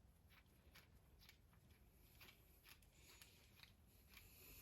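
Near silence with faint, irregular light clicks of a small screw being turned by hand with a driver into a plastic RC servo horn.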